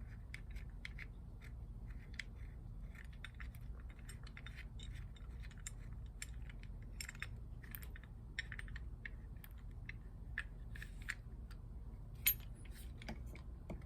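Light clicks and clinks of small metal and plastic parts as a spray gun's cup assembly is handled and fitted onto the gun, scattered irregularly over a low steady hum.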